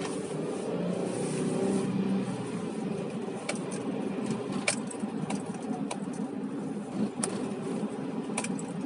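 Car driving, heard from inside the cabin: steady engine and road noise, with the engine note stronger in the first two seconds. Sharp light clicks come evenly about every second and a bit from about three seconds in.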